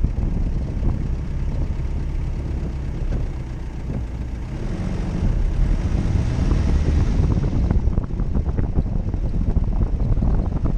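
Jeep Cherokee driving off-road: the engine runs as a steady low rumble while the body knocks and rattles over rough ground. A rushing hiss rises for a few seconds midway.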